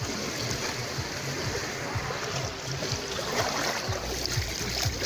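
Small sea waves washing on the beach in a steady hiss, with wind buffeting the microphone in short low thumps.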